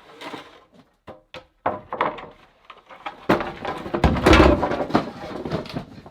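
A run of knocks and thuds from objects being handled and set down, building to a longer, louder stretch of heavy clatter from about three seconds in to near the end.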